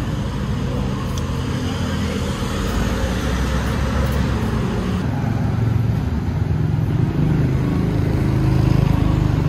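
Road traffic: a motor vehicle's engine rumbling steadily, growing louder near the end as it passes close.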